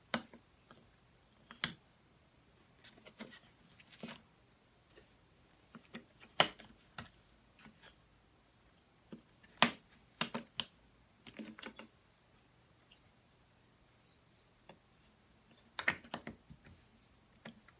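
Jigsaw puzzle pieces being handled and fitted into place: irregular clicks and taps, a few of them much louder knocks.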